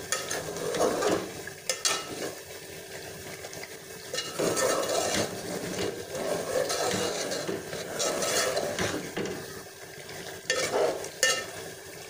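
Metal spoon stirring and scraping chicken pieces and masala around an aluminium pot in uneven strokes, the masala sizzling in hot ghee, with a few sharp clinks of the spoon against the pot.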